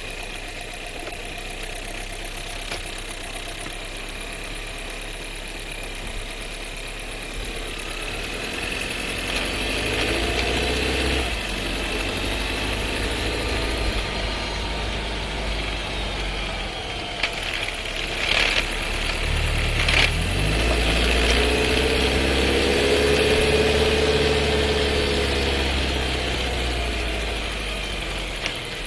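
Skoda Scala 1.5 TSI with a seven-speed DQ200 dry-clutch DSG, heard from inside the cabin while driving: steady engine and road noise that rises and falls. About two-thirds of the way in, a loud downshift brings a few sharp clunks and a rattle from the transmission, which the owner takes for a fault in the new car.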